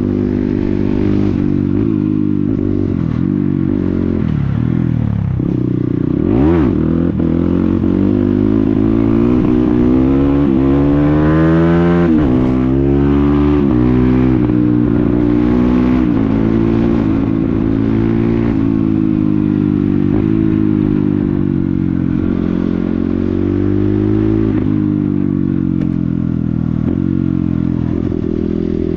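Dirt bike engine with a loud exhaust running under way, its pitch climbing as it accelerates and dropping back at each gear change. A quick, sharp throttle blip comes about six seconds in.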